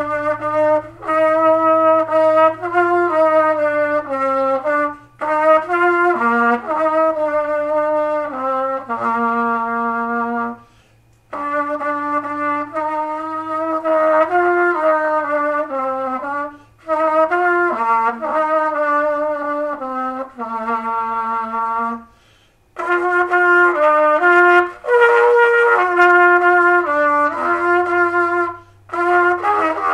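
A solo trumpet-family valved brass instrument playing a slow melody, one note at a time, in phrases of about five to six seconds with short breaks for breath between them.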